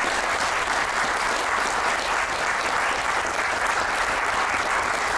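An audience and panel in a theater applauding steadily, many hands clapping together.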